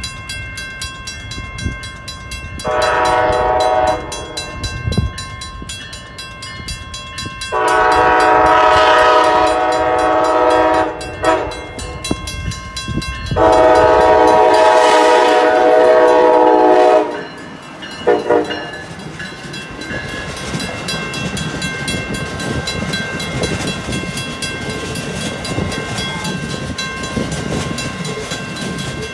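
Amtrak ACS-64 electric locomotive sounding its horn as it nears the grade crossing: a blast of about a second, then two long blasts of about three seconds, each followed by a short toot, over the steady ringing of the crossing bell. From about twenty seconds in, the Amfleet passenger cars rumble past over the rails.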